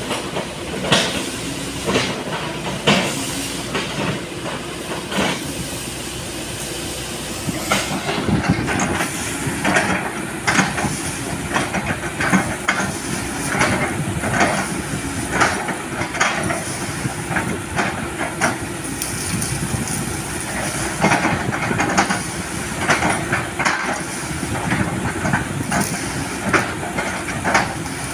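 Sany SY215C excavator's diesel engine running under hydraulic load while its bucket chops and splits an oil palm trunk, with irregular cracks and thuds of breaking wood throughout.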